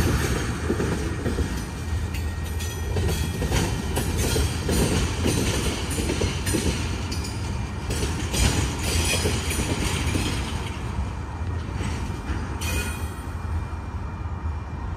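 Norfolk Southern freight train's tank cars and covered hoppers rolling past: a steady low rumble with irregular clacks of wheels over rail joints. The clatter thins out near the end as the train draws away.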